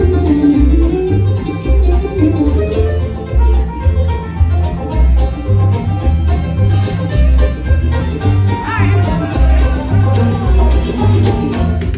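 Bluegrass band playing live, with banjo rolls and guitar over a steady two-note upright bass line. A high rising slide comes in about nine seconds in.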